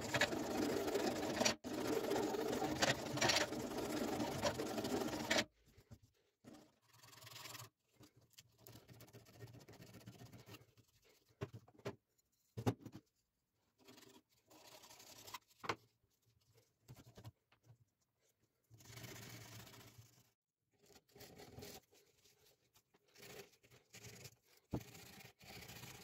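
Steady, rapid rasping of a wooden knife handle being rubbed down by hand, which stops abruptly after about five seconds. Faint, scattered scrapes and clicks follow as a thin blade is drawn across the wood to shave it.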